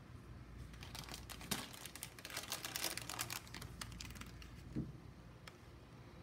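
Crinkling of plastic snack packets as they are handled and laid down on a cloth-covered table. The crackle is densest in the first half, and there is a soft thump about five seconds in.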